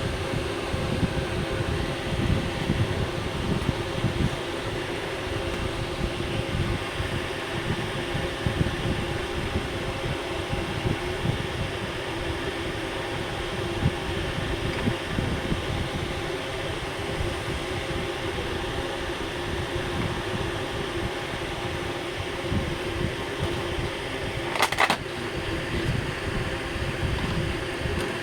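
Steady mechanical hum like a fan or air-conditioning unit, over an uneven low rumble, with one short sharp sound near the end.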